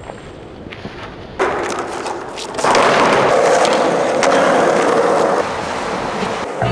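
Skateboard wheels rolling on concrete in a concrete underpass, the rolling noise swelling about one and a half seconds in and staying loud until shortly before the end, with a few sharp clacks of the board.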